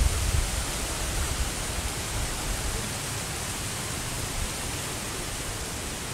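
Steady rushing wind noise on the microphone in open country, with an uneven low rumble of buffeting that eases after the first two or three seconds.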